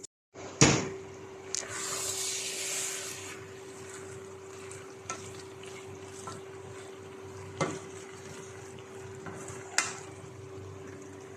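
Cabbage steaming in a pot over a low flame: a soft hiss and sizzle, loudest briefly about two seconds in, over a steady hum, with three light clicks scattered through.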